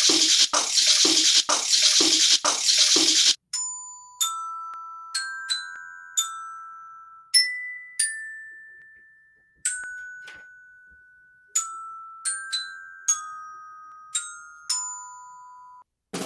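Shakers played in a steady rhythm, about two shakes a second, stopping abruptly about three seconds in. Then a glockenspiel (student bell kit) plays a slow melody of single struck notes, each ringing out and fading. A drum kit starts right at the end.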